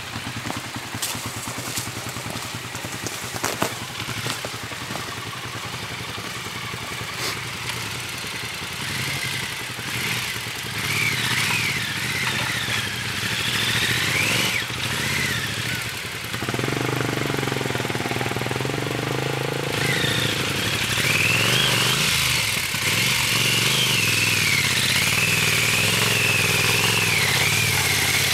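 Triumph Scrambler's air-cooled parallel-twin engine running at low revs as the motorcycle picks its way over a rocky stream bed, growing louder over the second half as it approaches, with a few sharp clicks from stones early on.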